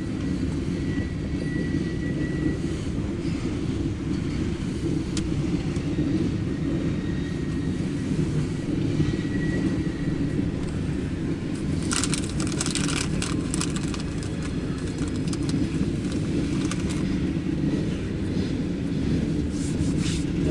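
Loaded coal hopper cars of a freight train rolling slowly past with a steady low rumble. A cluster of sharp metallic clicks comes about twelve seconds in.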